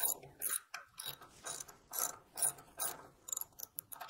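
Hand socket ratchet clicking in short, repeated strokes, several clicks a second, as it turns a tight bolt through a metal mounting bracket.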